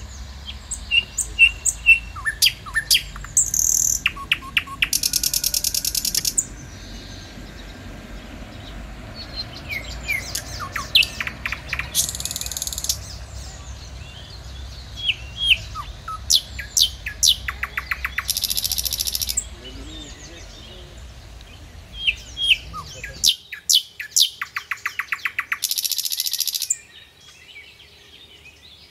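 Songbirds singing: many sharp chirps and whistled notes, with a rapid trilled phrase about a second long repeating every six or seven seconds. A low background rumble under the birdsong cuts off suddenly near the end.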